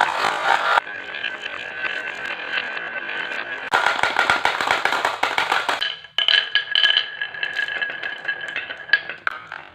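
Marbles rolling and clattering down a wooden marble run, with a steady rolling hum and a dense run of rapid clicks in the middle. The sound fades near the end.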